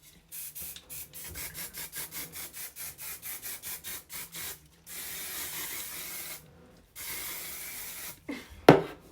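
Quick rhythmic rubbing strokes through hair, about five a second. Then two long hissing sprays of hairspray, the first about a second and a half, the second about a second. A short sharp knock near the end.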